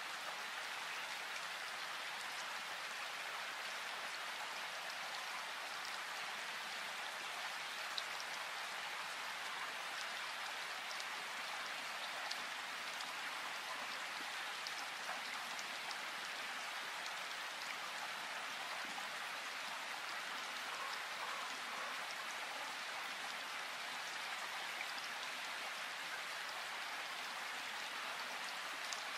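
Steady rain falling in a forest: an even hiss with scattered louder single drops.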